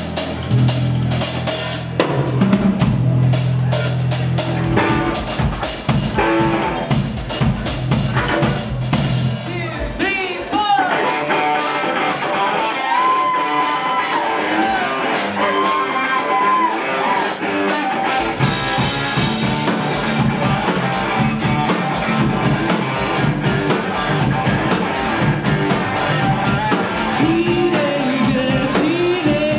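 Rock band playing live: drum kit, electric guitar and electric bass in an instrumental intro with a steady beat. About a third of the way in the low end drops back and the guitar plays bending lead notes, before the full band comes back in.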